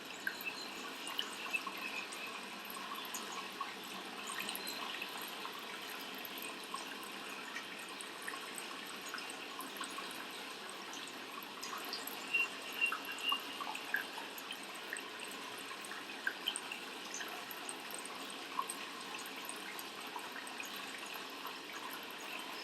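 Steady trickle of running water, with scattered small splashes and drips.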